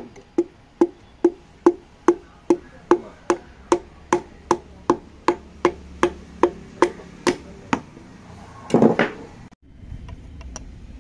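Steady, even taps of a hammer handle's butt end on the crown of a new piston, driving the piston and its rings down through a ring compressor into the cylinder bore of a 2008 Hyundai Santro engine block, about two taps a second, some twenty in all. Near the end comes one louder, longer clatter.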